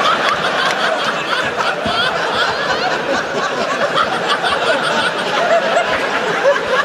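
Large audience laughing together, a dense, sustained wave of crowd laughter.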